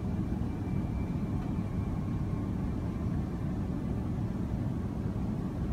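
Steady airliner cabin noise during the descent to land: engine and rushing-air noise, deep and even, with a faint thin high whine for a couple of seconds near the start.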